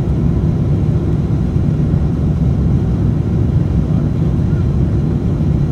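Steady low rumble of an Airbus A350-900's Rolls-Royce Trent XWB engines and rushing air, heard inside the passenger cabin while the airliner climbs after takeoff.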